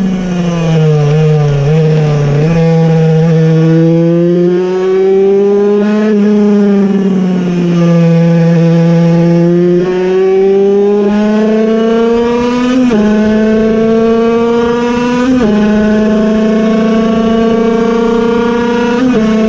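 Puch Cobra 50cc air-cooled piston-port two-stroke engine revving hard under racing load, heard from on board. Its high whine drops as the bike slows for a bend, climbs again, and is broken three times in the second half by quick upshifts, each a brief dip before it climbs on.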